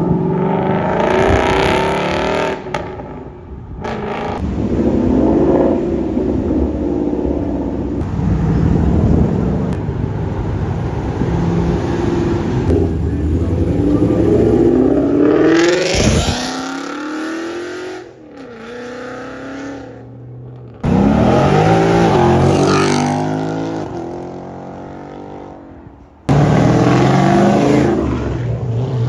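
Performance car engines revving hard and accelerating away one after another, their pitch rising and falling with each pull. The sound changes abruptly several times, as one car's run gives way to the next.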